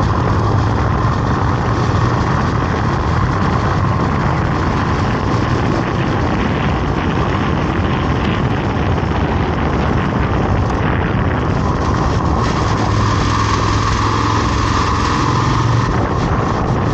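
A vehicle's engine running steadily on the move, with steady road and wind noise over it.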